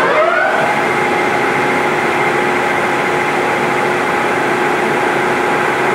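Acra engine lathe headstock running its spindle at 800 RPM in the high range: the gear whine rises as it speeds up over the first half second, then holds a steady pitch. The headstock gears run smoothly; the tester judges all its speeds to sound good.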